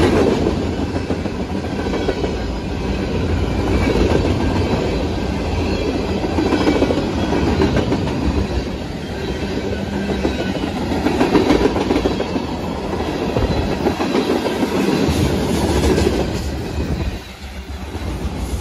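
Freight cars of a long mixed freight train rolling past at close range: a steady rumble of steel wheels on rail that swells and eases about every three to four seconds as each car goes by. It drops somewhat near the end.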